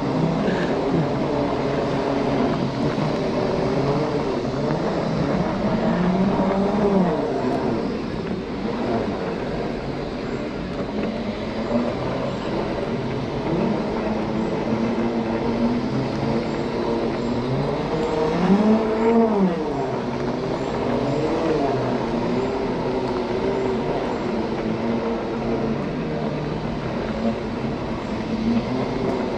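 Segway x2 off-road self-balancing scooter's electric drive whining as it rides, its pitch rising and falling with speed and climbing sharply about two-thirds of the way through, over steady noise of the big off-road tyres and wind.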